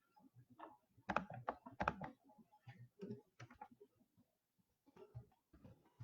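A run of irregular light clicks and taps, busiest and loudest about a second to two seconds in.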